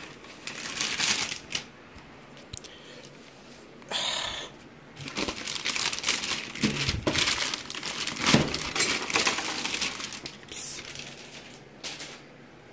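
Plastic packaging bag and protective sheet crinkling and rustling as a new laptop is unwrapped. The sound comes in several bursts, busiest and loudest in the middle, with a couple of dull bumps from handling.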